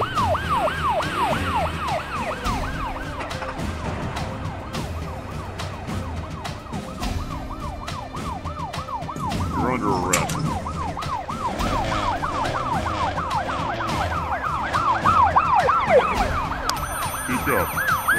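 Police car siren wailing in a fast yelp: the pitch sweeps down again and again, about three times a second, without a break.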